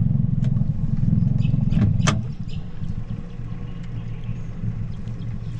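Boat's outboard motor running loudly, then throttled back about two seconds in to a quieter, steady low running, with a sharp click as it drops.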